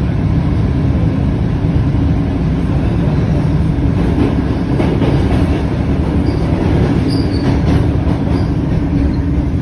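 Cairo Metro Line 1 Alstom-built (5700 series) train running, heard from inside the car: a loud, steady rumble of wheels and running gear with a constant low hum. A brief high wheel squeal comes about seven seconds in.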